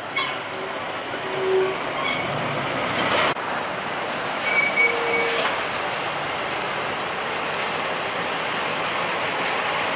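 Semi-trucks hauling shipping containers rumble past in steady traffic noise, with a few brief squeals and a couple of sharp clunks.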